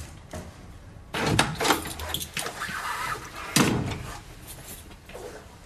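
A door being opened: handle and latch rattling from about a second in, then a single sharp knock about three and a half seconds in.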